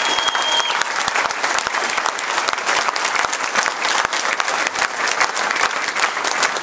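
A large audience applauding: dense, sustained clapping from many hands. A high held tone over the clapping stops under a second in.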